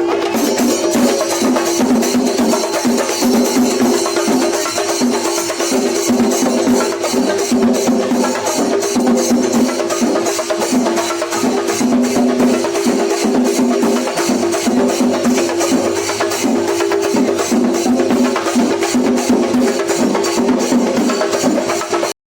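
Singari melam: chenda drums beaten in a fast, dense rhythm with elathalam hand cymbals clashing along; it cuts off suddenly near the end.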